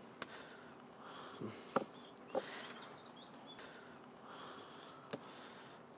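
Wooden spoon stirring rye-flour dough in a wooden bowl: faint scraping and squelching, with a few soft knocks of the spoon against the bowl.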